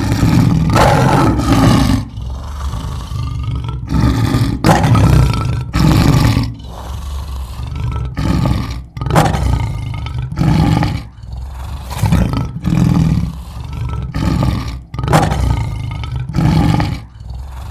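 Deep, roar-like animal calls repeated over and over, each about a second or two long with short breaks between them.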